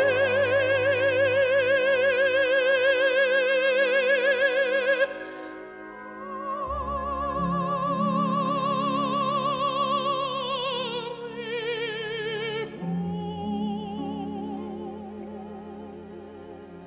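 An operatic female voice holds a long, loud note with wide vibrato over an orchestra, breaking off about five seconds in. The orchestra then plays on more softly, a wavering melody line with sustained low notes beneath it that ease down toward the end.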